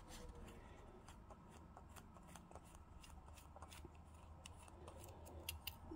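Very faint, scattered small clicks and scrapes of fingers handling the Xiegu X6100's metal side plate while working its small stand leg off.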